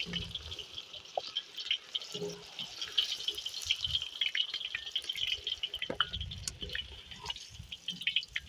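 Onion slices frying in hot oil in a kazan: a steady sizzle full of small crackles and pops. The onions are being fried only lightly and quickly.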